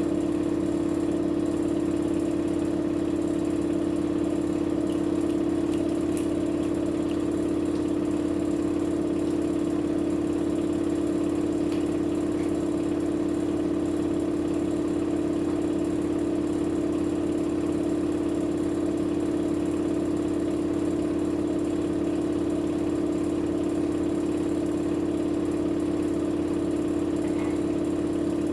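Electrolux washing machine spinning: a steady hum from the motor and drum, holding one unchanging pitch.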